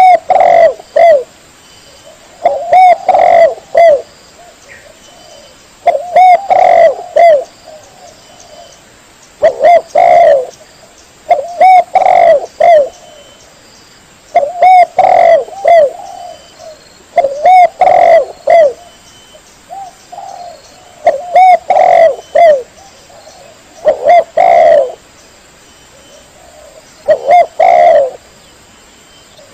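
Spotted dove (tekukur) cooing: a phrase of several low coos, repeated about every three seconds.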